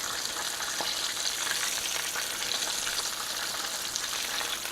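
Breaded turkey cutlets pan-frying in hot oil: a steady sizzle with fine crackling.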